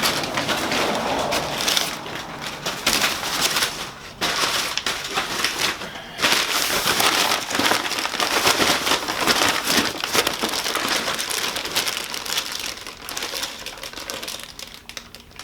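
Plastic parts bags and packing material crinkling and rustling as they are handled, in a dense crackle with short lulls about four and six seconds in.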